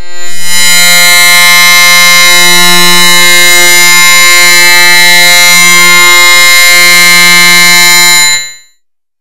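Loud, harsh electronic buzzing tone with many stacked overtones, held steady for about eight seconds. It swells in at the start and cuts off shortly before the end. This is a digitally stretched and distorted sound effect.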